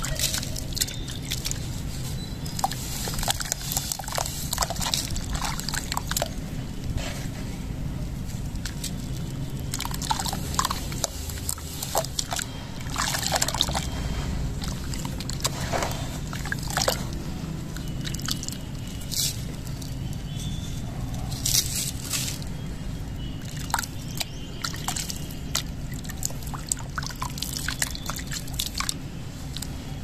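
Hands crumbling a sand-and-cement block in a plastic basin of water, sloshing and splashing the muddy water with irregular drips and trickles, over a steady low rumble.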